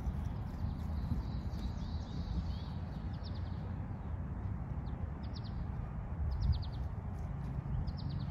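Small birds chirping, a twittering run early on and then short clusters of a few quick chirps every second or two, over a steady low rumble.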